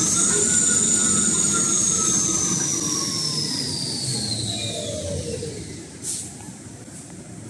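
Paper towel rewinding line running: a motor whine rises briefly, then slowly falls in pitch over several seconds, over a steady mechanical rumble. A short hiss comes near the end.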